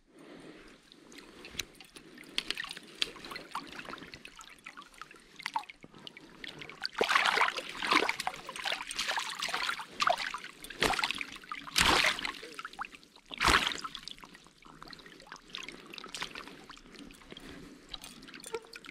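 Water splashing and dripping as a brown trout twists in a landing net held in the water. Scattered small splashes and drips, with a run of heavier splashes from about seven to fourteen seconds in.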